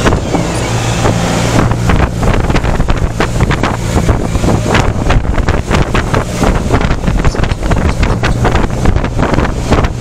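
Wind rushing and buffeting on the microphone of a moving motorcycle, with the steady hum of its engine underneath.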